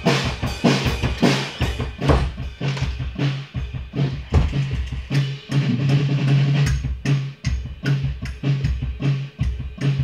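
Acoustic drum kit played in a steady beat, with kick drum, snare and cymbal hits several times a second and a low ringing drum tone under them.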